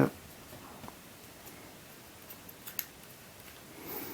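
A few light clicks and taps of hard plastic as a Rubik's UFO puzzle is handled and seated on its plastic stand. There is one sharp click at the start, a handful of faint ticks a couple of seconds in, and a soft rustle near the end.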